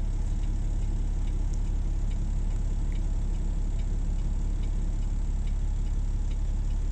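Heavy diesel engine idling, a steady low drone, with faint, regular ticking about two to three times a second over it.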